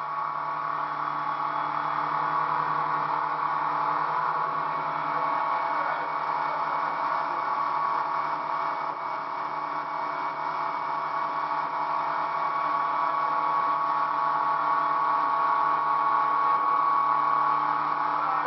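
Motorboat engine running at a steady speed while towing an inner tube, a constant drone with a rushing haze of water and wind over it.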